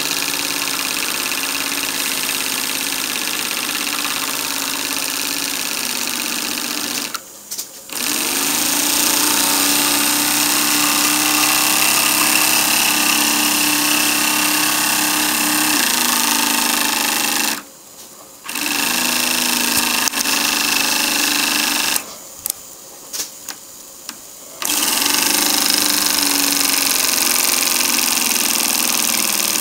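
Stuart Turner TVR1A twin-cylinder model marine steam engine running steadily on steam, a continuous hiss with rapid mechanical clatter. It drops out briefly about seven seconds in and again around eighteen seconds, then for about two and a half seconds a little after twenty-two seconds, picking up again each time.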